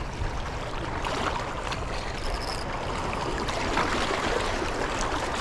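Steady rushing of flowing river water, an even noise with a low rumble beneath it and a few faint ticks scattered through.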